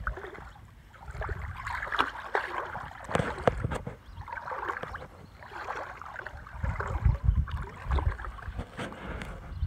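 Dog wading in shallow water, the water sloshing and splashing around its legs.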